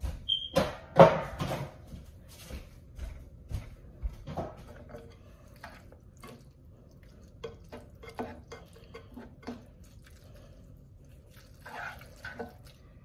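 Kitchen clatter: scattered clicks and knocks of dishes, pots and utensils being handled, loudest about a second in.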